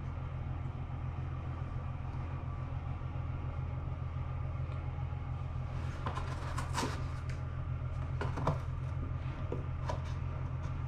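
Hands working on the drum washer-dryer's dust intake, with scattered scraping and rustling of parts starting about halfway through, over a steady low hum.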